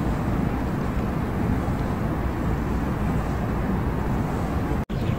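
Steady low rumbling background noise, broken by a split-second dropout near the end.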